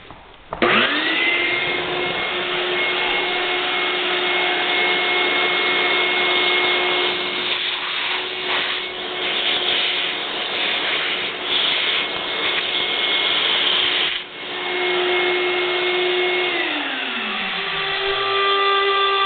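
Shop vac motor starting with a rising whine about half a second in, then running steadily as it sucks metal shavings out of a stud recess, with brief crackles midway. Near the end its pitch drops away as the motor winds down.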